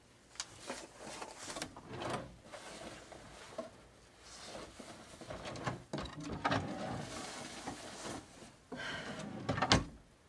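Irregular handling and knocking sounds in a small room, with clicks throughout and one sharp click just before the end.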